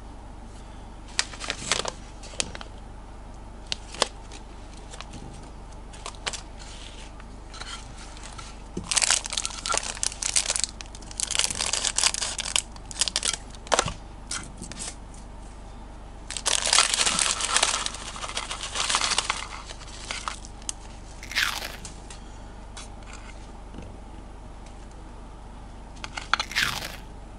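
Thin clear plastic candy bag crinkling and tearing in the hands, in several bursts of rustling a few seconds long, with scattered light clicks and taps between them as small flower-shaped gummy candies are handled and set down on a wooden board.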